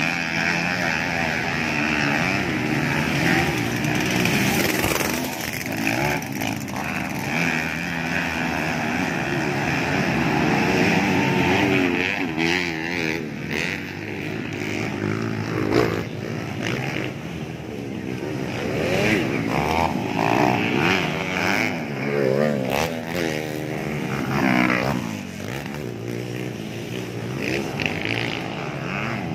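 Dirt-bike engines revving and running as several race motorcycles ride the track, their pitch rising and falling over and over with the throttle.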